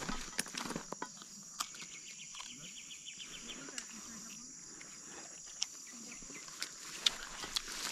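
Steady high-pitched insect chorus, with a short rapid pulsing trill from about one and a half to three seconds in and scattered light clicks.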